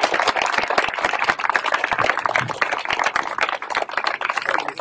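A small crowd applauding, a steady run of dense hand-clapping.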